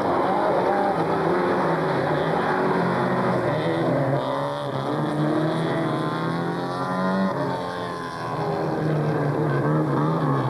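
Several folkrace cars' engines running hard on a dirt track, revving up and down as the cars accelerate and lift off, with the pitch of one sweeping up and back down in the middle as a car passes. The sound dips briefly about eight seconds in, then the engines pick up again.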